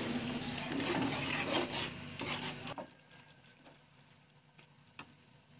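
A plastic spatula scraping and stirring against the bottom of a nonstick pan of simmering tamarind chutney, a rasping sound for the first three seconds or so. It then drops abruptly to a much quieter stretch with a few faint clicks.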